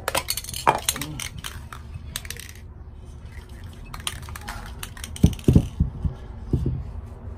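Aerosol spray paint can being shaken, the mixing ball inside rattling in rapid clicks, in two spells. A few dull knocks follow about five seconds in as the can and the clay pot are handled.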